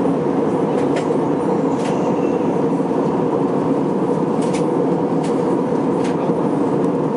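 Steady cabin noise of an Airbus A321-231 airliner in flight: an even roar of engines and rushing airflow heard from a window seat. A few faint clicks sound over it.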